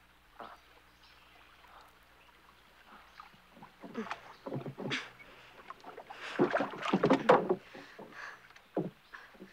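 A wooden rowboat knocking and shifting in the water as a person clambers into it from a bridge piling. The scuffling and knocks build from about three seconds in and are loudest around seven seconds in.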